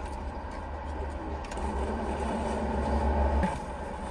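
A low rumble that swells in the second half and cuts off abruptly about three and a half seconds in, over a faint steady hum.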